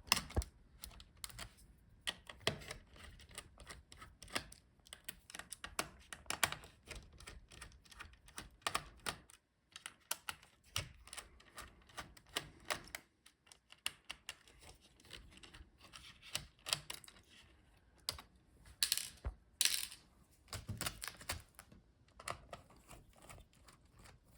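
Screwdriver taking small screws out of a laptop's motherboard and chassis: a long run of irregular light clicks and taps.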